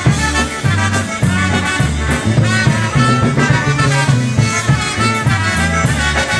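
Live polka band playing an instrumental passage of a polka, with a steady two-beat bass line alternating between notes under the melody.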